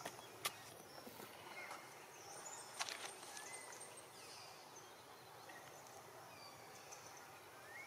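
Quiet forest ambience: a faint steady hiss with a few short, faint chirping calls, and a couple of sharp clicks in the first three seconds.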